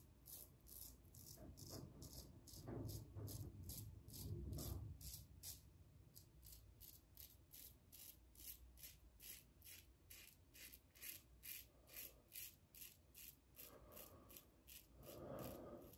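Double-edge safety razor (TGS Valynor with a KAI blade) scraping stubble through shaving lather on the against-the-grain pass: faint, short, even strokes a little over two a second. Duller rustling comes in around three to five seconds and again near the end.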